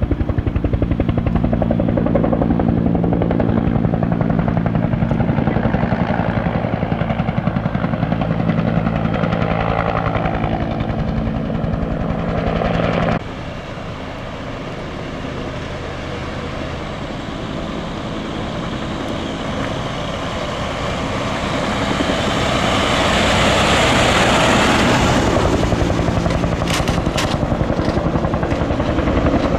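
Firefighting helicopter's rotor and turbine beating steadily. About halfway through the sound cuts abruptly to a quieter aircraft that grows louder, peaks, and eases off as it passes.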